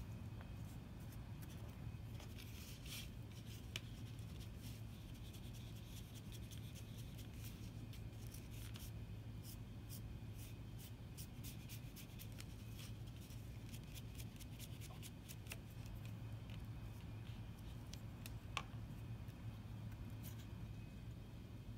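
Foam brush dabbing and rubbing acrylic paint onto a foam collagraph stamp: faint scattered taps and scratches over a steady low hum.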